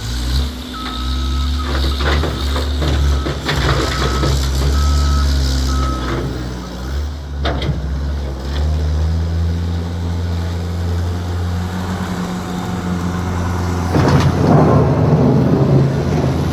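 Skid steer engine running steadily, with its reversing alarm beeping repeatedly for the first six seconds or so as it backs up. About halfway through, the engine pitch rises a little, and near the end a louder, rougher noise joins it.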